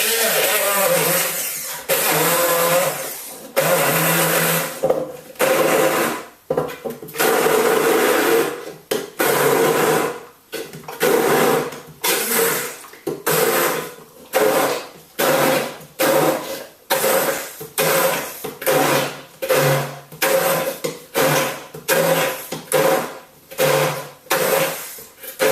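Blender pulsing a thick mix of soaked almonds and beetroot: a few longer runs at first, then short on-off bursts of about one a second.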